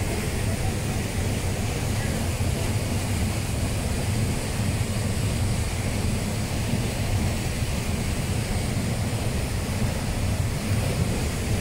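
Steady rushing of a shallow river flowing over stones and rocks, an even noise with no breaks.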